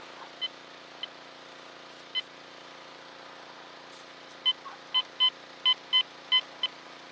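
Quest Q20 metal detector sounding short beeps, all at the same pitch, as its coil sweeps back and forth over a buried target: a few spaced beeps at first, then a quick run of about seven in the last few seconds as the coil homes in on a small metal object.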